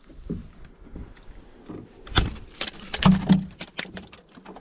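Irregular knocks and clatter of gear against a small boat, thickest from about two to four seconds in.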